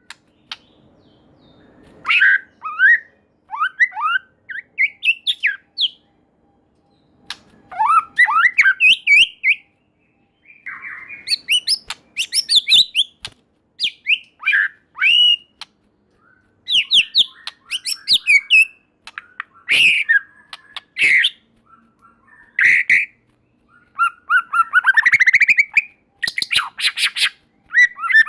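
White-rumped shama singing: loud, varied phrases of clear whistled notes sweeping up and down, mixed with sharp clicks, in bursts separated by short pauses.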